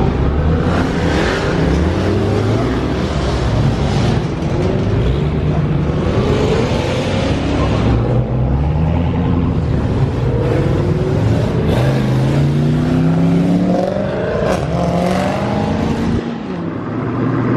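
Several Dodge muscle-car engines revving and accelerating together, a string of overlapping revs whose pitch climbs and drops again and again.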